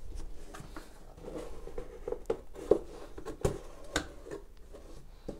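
Hands handling a cardboard mailer box on a wooden tabletop: soft scrapes and light taps as it is shifted about, with two sharper knocks about half a second apart a little past the middle.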